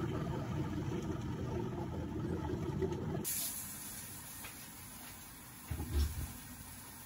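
Tap water rushing onto vegetables in a metal colander for about three seconds, then, after a cut, the steady hiss of a gas stove burner under an empty wok, with a soft low knock near the end.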